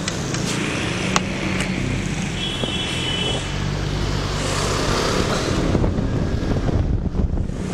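CFMoto NK400 motorcycle's parallel-twin engine running steadily while riding, under wind and road noise on the rider's microphone. A short high tone sounds briefly about two and a half seconds in.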